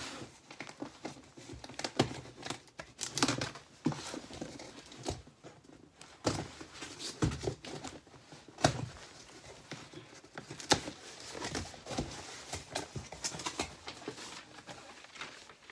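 Cardboard box being opened and unpacked by hand: tape tearing, cardboard and paper crinkling and rustling, with irregular knocks and scrapes.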